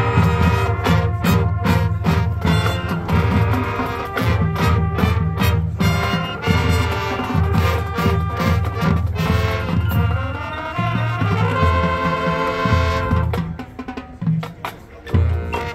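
High school marching band playing a field show: brass and drums come in together loud and all at once, with drum strokes under the brass. About two-thirds of the way through the brass holds longer chords, then the music drops in level near the end, broken by a few separate drum hits.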